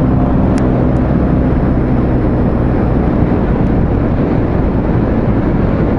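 Yamaha Cygnus X 125 scooter's single-cylinder four-stroke engine, fitted with a 59 mm big-bore cylinder, running at about 70–80 km/h under steady wind and road rush, heard through a microphone stuffed inside a full-face helmet that keeps little of the wind out.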